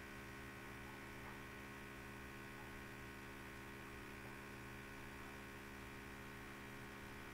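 Faint, steady electrical mains hum with its row of even overtones, over a light hiss; nothing else happens.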